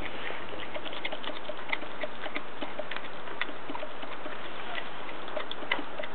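Groenendael puppy chewing and licking a chunk of raw green tripe: irregular wet clicks and smacks of mouth and teeth, over a steady hiss.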